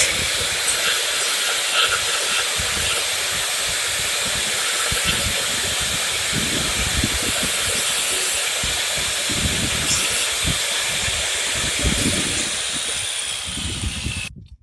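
Steady, loud hissing from metalwork on the engine parts, with a faint high whistle over it; it cuts off abruptly near the end.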